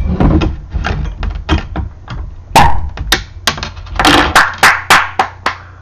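Glass beer bottles and a plastic spoon-shaped bottle opener being handled on a table: a run of sharp clicks and taps, coming about three a second in the second half.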